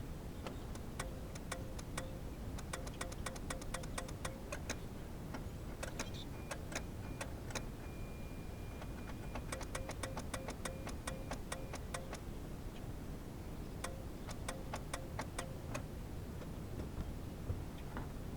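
Geo Metro's starter solenoid clicking rapidly in several runs of a few seconds each, about five clicks a second, as the key is held to start, without the engine cranking. The sign of too little voltage from the jump pack to turn the starter.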